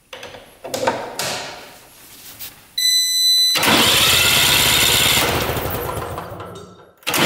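The 400cc two-stroke engine of a mini tank being turned over to check ignition spark after its points were cleaned. A few short noises and a brief high whine come first. Then the engine spins over rapidly and steadily for about three seconds and stops, and it starts turning again right at the end.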